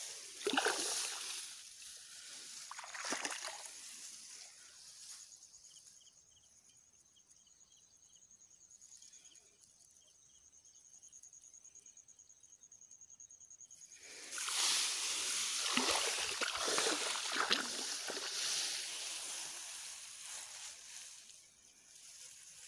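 Wading steps through floodwater in a waterlogged rice paddy, water sloshing and splashing, in bursts over the first few seconds and again through most of the second half. In the quieter stretch between, only a faint steady high whine.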